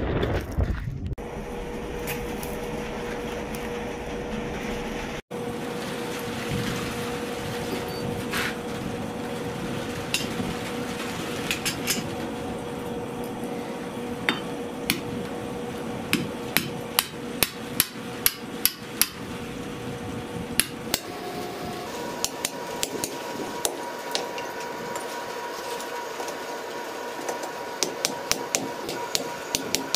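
Ball-peen hammer blows on red-hot steel against a blacksmith's anvil: sharp, ringing strikes in short runs with pauses, over a steady background hiss.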